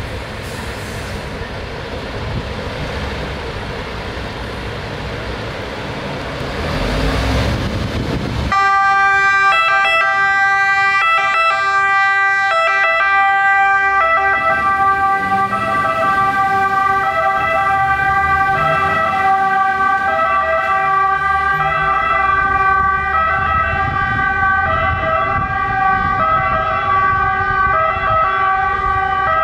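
MAN TGS 18.320 fire engine's diesel engine running and growing louder as it pulls out, then about eight and a half seconds in its two-tone siren comes on, switching back and forth between two pitches and carrying on as the truck drives away.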